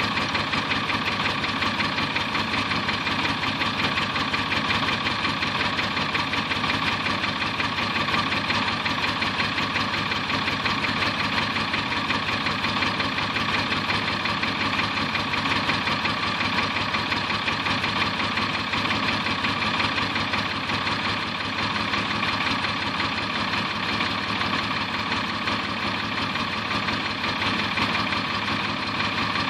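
1986 Star 200 truck's six-cylinder diesel engine idling steadily, still warming up after a −10 °C cold start.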